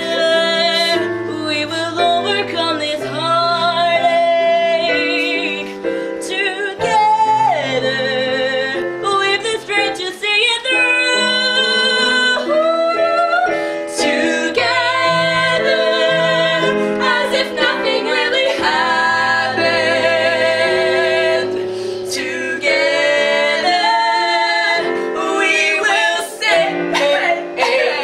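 Musical-theatre number: several voices singing a show tune over instrumental accompaniment with sustained bass notes.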